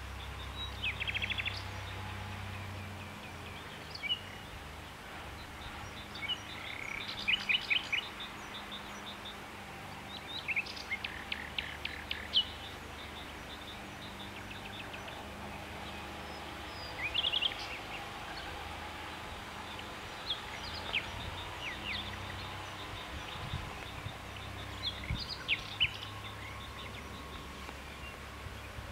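Small birds chirping in short, rapid bursts every few seconds over a steady low background rumble.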